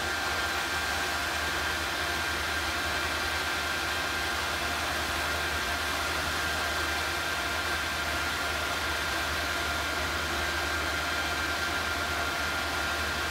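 Small induction heater running steadily while melting bronze in a graphite crucible: an even, fan-like hiss with a thin steady high whine and a low hum.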